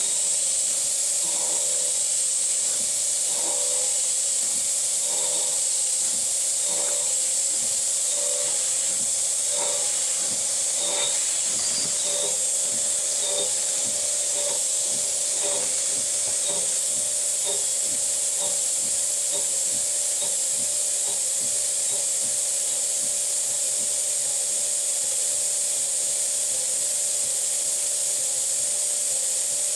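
Novakon Torus Pro CNC mill running in mill-turn mode: a steady high hiss over a steady hum, with faint regular ticks about once a second that fade out over the first half.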